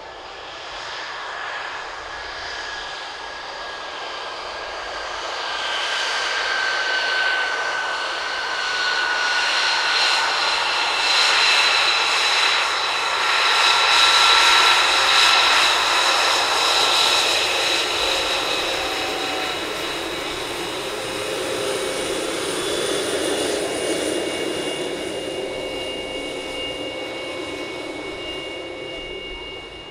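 Lockheed Martin F-22 Raptor's twin Pratt & Whitney F119 turbofans whining at taxi power as the jet rolls past. The whine holds several high tones, one sliding slowly down in pitch, and it swells toward the middle and fades as the jet moves away.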